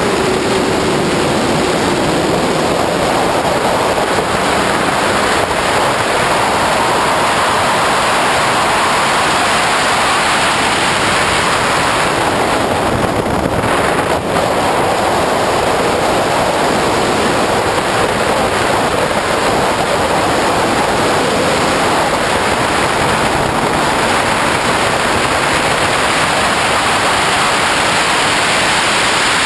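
Steady rush of wind and road noise over an outside-mounted camera on a Porsche 911SC at track speed, with the car's air-cooled flat-six engine faintly rising and falling underneath. The noise dips briefly about halfway through.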